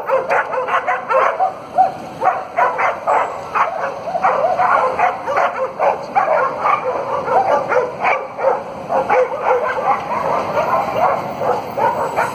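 Several dogs barking and yapping over one another, several barks a second without a pause.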